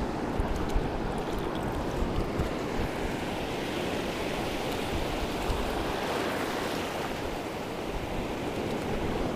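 Surf breaking on the reef edge and shallow water washing over the reef flat, with wind on the microphone: a steady wash of noise with no clear breaks.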